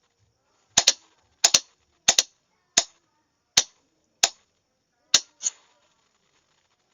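Morse code sent as sharp clicks: about ten clicks over four and a half seconds, some in quick pairs and others single, spaced unevenly in the rhythm of letters.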